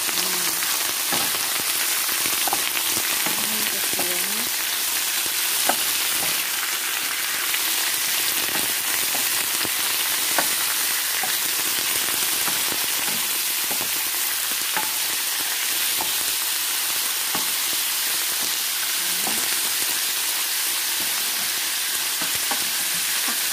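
Raw chicken gizzards sizzling in hot oil with onion and garlic in a frying pan, a steady frying hiss, with scattered clicks and scrapes as they are stirred around the pan.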